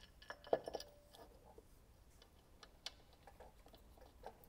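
Faint metallic clicks and clinks of a machined metal crankshaft adapter half being seated onto its mating half and its bolts handled, with a brief ringing clink about half a second in, then scattered small ticks.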